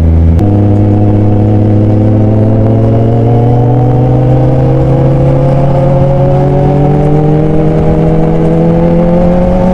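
Kawasaki Z1000's inline-four engine pulling under throttle. The note steps up about half a second in, then climbs slowly and evenly as the bike accelerates.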